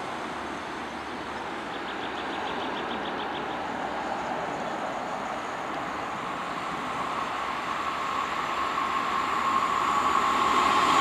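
SNCF X 4630 'Caravelle' diesel railcar approaching along the line, its running noise growing steadily louder, with a steady high tone building near the end. A short run of quick high-pitched ticks comes about two seconds in.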